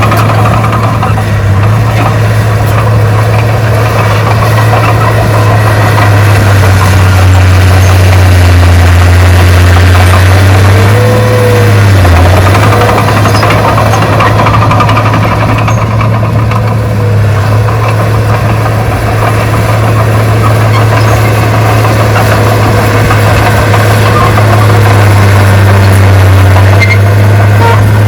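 Heavy construction machine's diesel engine running steadily, its engine speed dipping briefly about twelve seconds in and again near the end.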